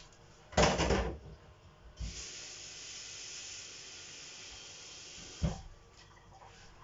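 A short clatter, then a kitchen tap running steadily with a hiss for about three and a half seconds before it is shut off with a knock.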